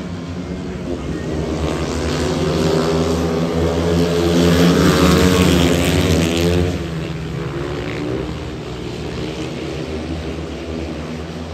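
Speedway bikes' 500cc single-cylinder methanol engines racing round the track at full throttle. The sound swells as two bikes pass close by about five to six seconds in, their pitch dropping as they go by, then settles back as they move off down the straight.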